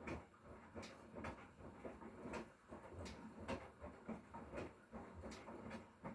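Hotpoint Core 8 kg inverter-motor washing machine mid-wash, its drum turning the laundry, with irregular soft knocks and swishes about one or two a second.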